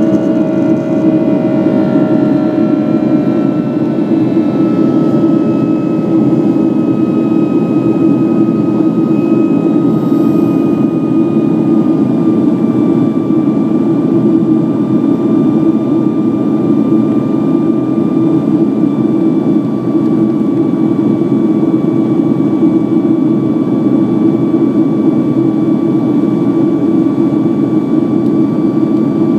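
Cabin noise of a Boeing 757-200 climbing out after take-off: a loud, steady jet engine drone and rush of air. Several engine tones slide slowly lower over the first dozen seconds, then hold steady.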